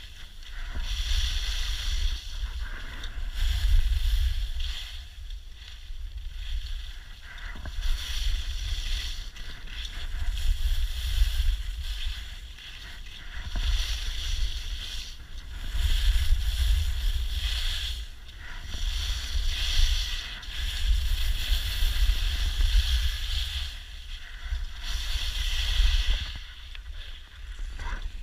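Skis hissing and scraping over packed snow in a steady run of turns, swelling about once every two seconds, over a low wind rumble on the microphone. It gets quieter near the end.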